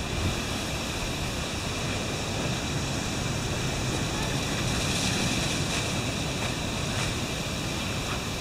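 Steady rushing wind, swelling slightly around the middle.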